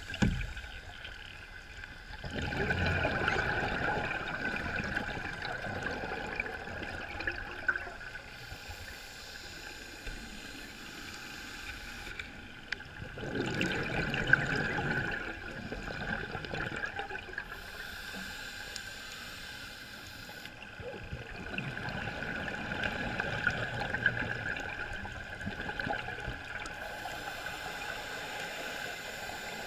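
Underwater sound of a scuba diver breathing out through a regulator: three gurgling bursts of bubbles about ten seconds apart, each lasting two to three seconds.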